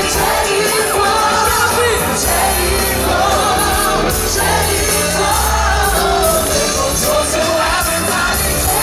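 Live gospel-pop performance: a solo singer's amplified voice over a full band with electric guitar, keyboard, bass and drums.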